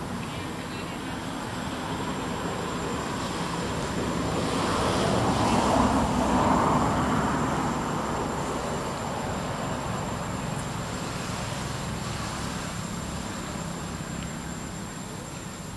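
A motor vehicle passing by: a steady engine and road noise that swells to its loudest about six seconds in, then slowly fades away.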